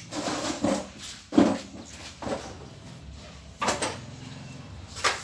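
A wooden packing crate being handled: a handful of irregular knocks and scrapes of wood, the loudest about a second and a half in.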